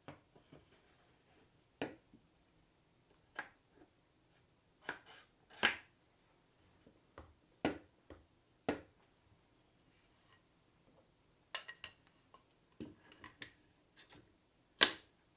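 Wooden parts knocking and clacking as a homemade scroll saw's wooden arms are handled, fitted onto the wooden upright and set down on a wooden workbench: a series of separate sharp knocks with pauses between, the loudest near the end.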